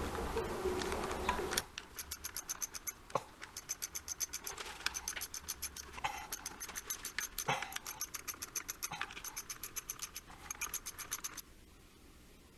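Hand ratchet clicking in quick, even runs with short pauses and a few knocks as the bolts on a motorcycle clutch pressure plate are backed out; the clicking stops near the end.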